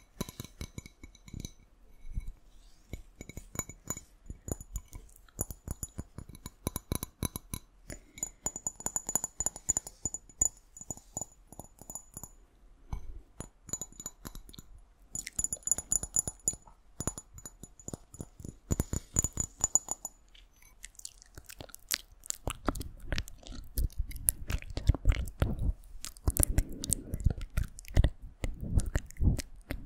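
Close-miked ASMR tapping on glass and wet mouth sounds: a rapid, irregular stream of small clicks and taps. Now and then a high glassy ring hangs over the taps. The clicking turns denser and heavier for the last third.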